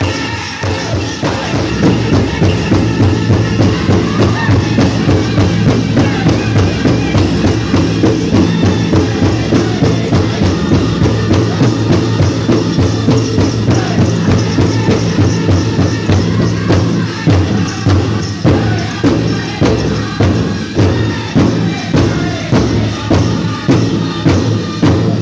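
Powwow drum group singing over a steady beat on a large shared drum, with the jingling of dancers' leg bells; the song stops right at the end.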